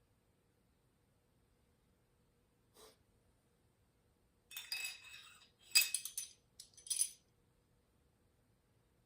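Small metal parts clinking and rattling against each other with a brief metallic ring, in a few short bursts from about four and a half to seven seconds in.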